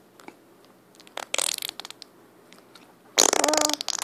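A fart noise: a short breathy puff about a second in, then a louder, buzzy, pitched fart blast lasting most of a second near the end.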